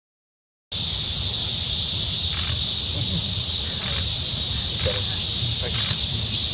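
A steady high hiss over a low hum that cuts in abruptly just under a second in, with a few faint short ticks.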